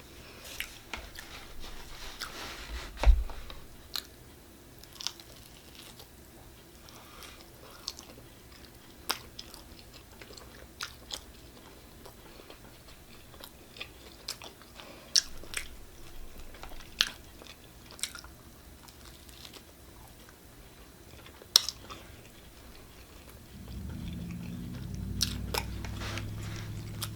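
A person biting and chewing pizza up close to the microphone: scattered wet mouth clicks and crunches, with a sharper knock about three seconds in. A low hum joins in the last few seconds.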